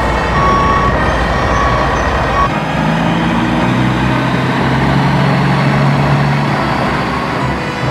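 Dubbed heavy truck sound effect: a diesel engine running, with a reverse-warning beeper sounding in short repeated beeps for the first couple of seconds. After that comes a low, steady engine drone.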